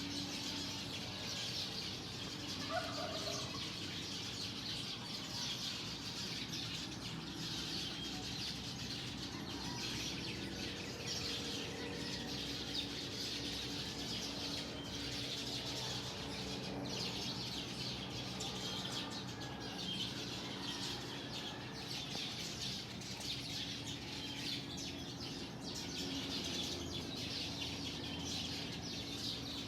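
A dense chorus of many small birds chirping at once, steady and unbroken.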